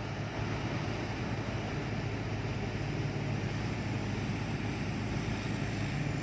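Combine harvester's diesel engine running steadily with an even low hum, unchanging throughout.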